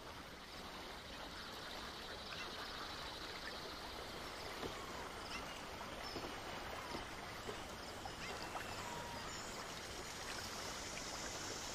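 Faint lake ambience: a steady wash of water around a swimmer, with a few short bird calls.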